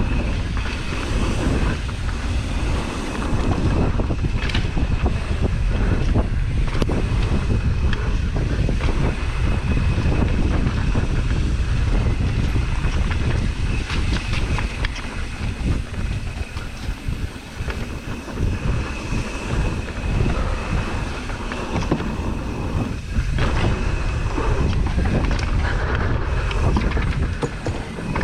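Wind buffeting the microphone as a downhill mountain bike rattles over rough trail at speed, with many small knocks and a thin, steady high whine through much of it.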